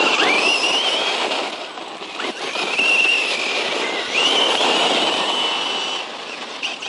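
Brushless electric motor of a Circuit Thrash 1/10 scale RC truck whining as it accelerates, its pitch rising three times, over a steady rush of noise.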